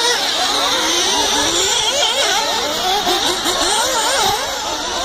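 Several 1/8-scale nitro RC buggies' small two-stroke glow engines revving up and down together, their high whines rising and falling and overlapping as the cars race the circuit.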